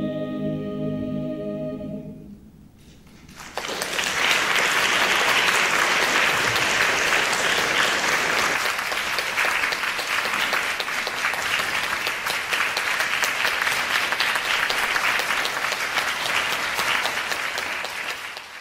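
A mixed barbershop chorus holds its final a cappella chord, which stops about two seconds in. After a short pause the audience breaks into steady applause.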